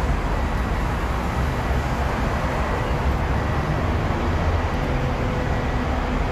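Hong Kong double-decker tram running along its tracks, heard from the upper deck: a steady rumble of wheels and motor with a faint steady whine, over the noise of street traffic.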